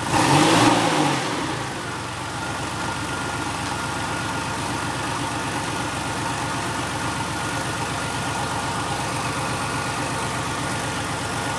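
Porsche 993 Carrera 4S's air-cooled 3.6-litre flat-six, with the stock Motorsound package, revved once in a quick throttle blip at the start. It then drops back to a steady idle.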